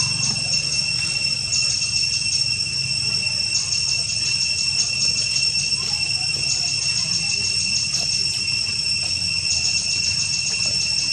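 Insect chorus: a steady high-pitched drone, with bursts of fast, high ticking chirps about every two to three seconds, over a low background rumble.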